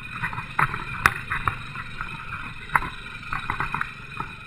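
Royal Enfield motorcycle engine running under a low rumble while the bike jolts over a rough, stony dirt track, with irregular knocks and rattles.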